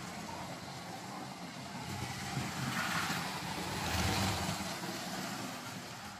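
Brick-built model of the DB V188 (BR 288) twin-unit diesel locomotive running fast on plastic toy-train track at speed step 8: the steady running noise of its motors and wheels on the track. It grows louder as the locomotive passes close, about three to four seconds in, then fades as it moves away.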